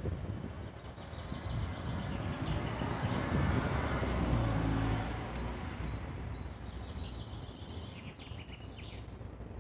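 A car passing close by, its tyre and engine noise swelling to a peak about halfway through and then fading. Small birds chirp faintly in the background.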